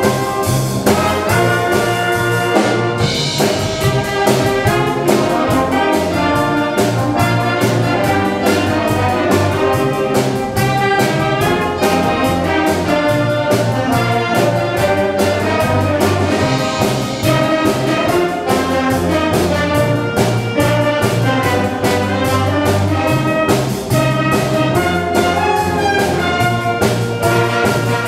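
Wind band playing an arrangement of a pop song, with brass and saxophones carrying the melody over a steady beat.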